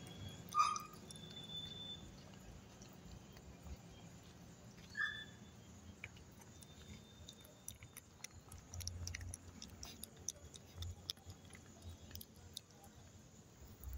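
Shih Tzu puppy lapping and chewing wet, milky food from a stainless steel bowl: a scatter of small wet clicks and smacks, busier in the second half. A couple of short high chirps sound near the start and about five seconds in.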